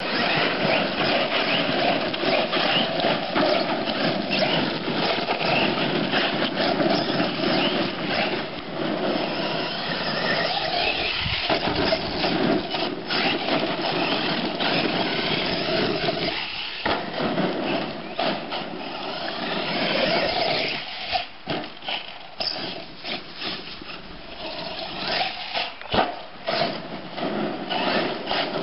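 Electric brushless R/C monster truck (Team Losi LST2 conversion, 1800KV motor on 5S LiPo) driven hard on gravel: a continuous motor and drivetrain whine mixed with tyres churning gravel, rising and falling with the throttle. In the second half it breaks off several times, with short knocks.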